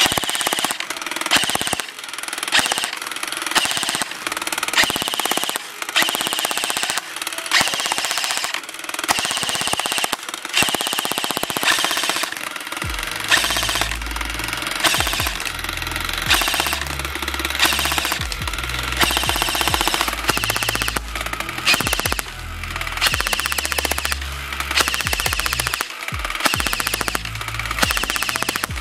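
Cybergun/A&K MK46 airsoft electric light machine gun firing on full auto in bursts, its gearbox cycling in a rapid buzzing rattle. Background music with a steady beat plays along, and a heavy bass line joins in about halfway through.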